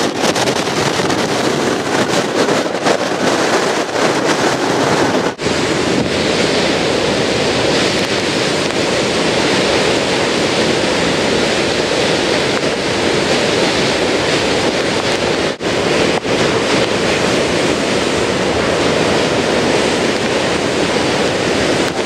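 Tropical-storm-force wind buffeting the microphone over heavy surf breaking on the rocks: a loud, steady rush of noise, with two brief drops where the footage cuts.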